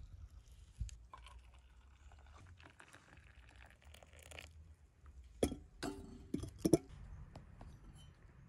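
Tea poured from a cast-iron teapot into a stainless steel mug, then a few sharp metal clinks with a short ring as the mug and pot are handled, about two-thirds of the way through.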